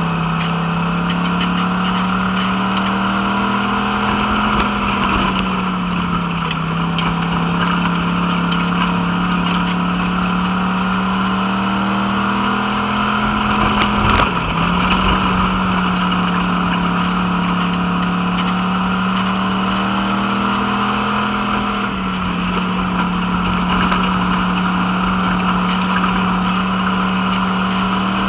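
Pure Stock dirt-track race car's V8 engine heard from inside the cockpit, pulling at speed: the note climbs steadily down each straight and drops sharply as the driver lifts for the turns, three times over. A brief sharp knock about halfway through.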